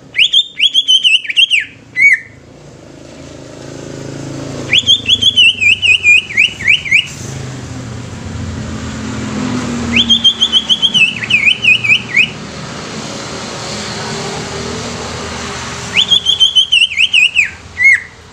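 Caged cucak ijo (green leafbird) singing four loud, high whistled phrases, each about two seconds of quick notes that fall and waver, with pauses of a few seconds between them. A low background rumble swells through the middle.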